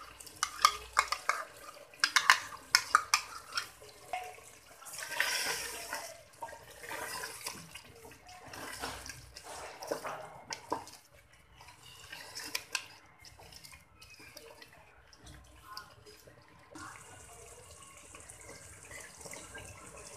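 A metal spoon clicks and scrapes against a bowl as cream is knocked into a pot of chicken, a quick run of taps in the first few seconds. Then a wooden spatula stirs the chicken through its wet gravy in uneven bursts, settling into a steady low hiss of cooking near the end.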